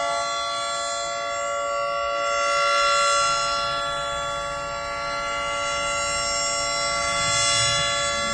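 Orange 3T22 tornado warning siren sounding at a steady pitch, its loudness swelling and fading about every four to five seconds.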